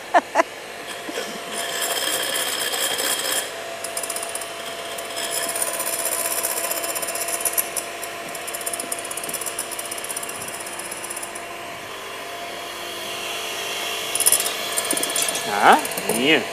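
Electric hand mixer running steadily, its twin beaters whipping egg whites into meringue in a bowl.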